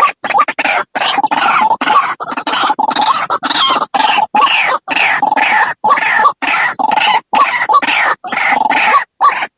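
White-breasted waterhen calling: a rapid, unbroken string of harsh croaking notes, about three a second, each split by a short gap.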